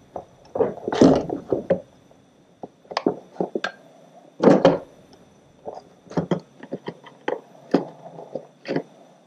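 Hand tools and metal parts being handled on a workbench: a dozen or so short clinks and knocks at uneven intervals, some in quick clusters.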